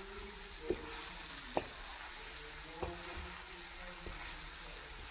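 Beef tibs with onion, tomato and carrot sizzling in a hot black iron wok as they are stirred with a wooden spatula, with the spatula knocking against the pan about four times.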